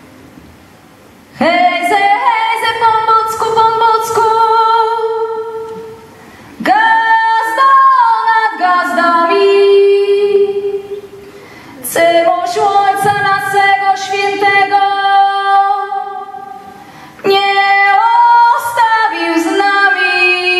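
A woman's solo voice sings a Polish carol, mostly unaccompanied, in four long phrases of held notes that slide between pitches, with short pauses between the phrases.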